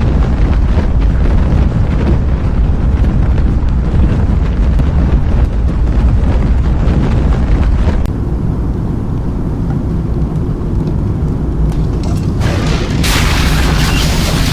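Strong storm wind roaring and buffeting the microphone as a deep, steady rumble. About eight seconds in the sound changes abruptly to a duller rumble, and about thirteen seconds in a brighter rushing hiss comes in.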